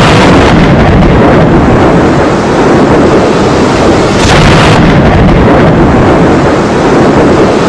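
Heavy rain pouring, a loud dense rushing with a deep rumble underneath. It swells brighter and hissier about four seconds in.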